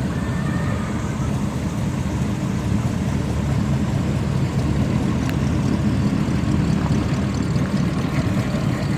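Car engine idling steadily, with a low, even exhaust note.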